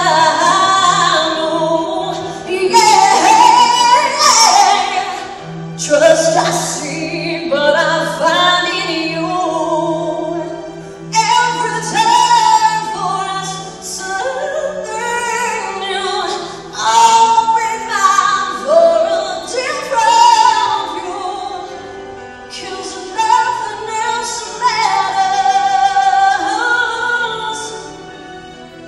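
A woman singing solo into a microphone, with long held notes, over instrumental accompaniment, amplified through a hall's sound system.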